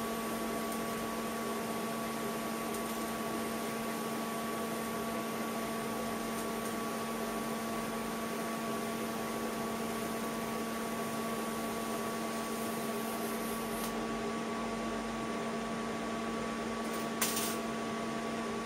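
TIG welding arc hissing steadily on a stainless steel tube over a steady electrical hum from the welding set. The highest part of the hiss drops away about 14 seconds in as the arc stops, and a short sharp click follows near the end.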